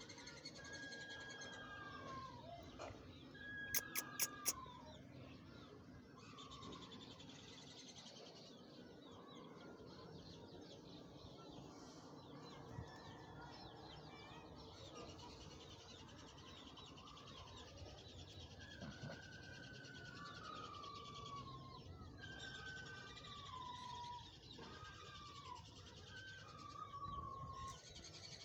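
Rosella parrots calling: repeated short whistled notes that fall in pitch, over a continuous high chatter. Four sharp clicks come in quick succession about four seconds in.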